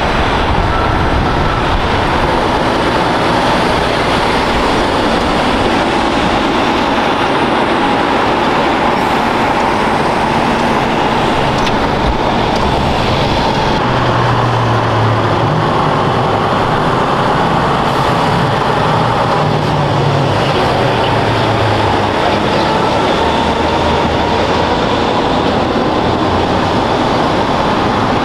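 Steady, loud vehicle noise: heavy traffic rumble with engines and tyres, holding at an even level throughout.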